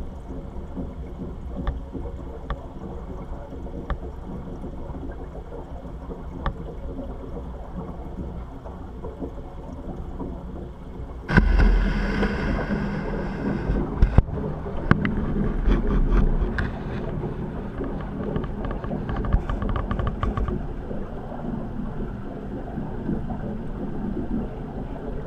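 Steady rushing, rumbling water noise in a fish-rearing tank, with a few small clicks scattered through it. It becomes suddenly louder about eleven seconds in and stays so.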